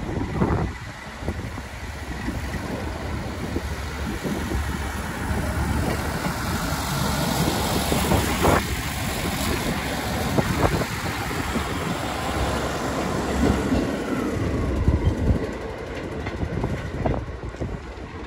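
ScotRail Class 156 Sprinter diesel multiple unit passing and pulling away, its diesel engine running under the steady rumble of the train, with a few sharp clacks of wheels over the rail joints.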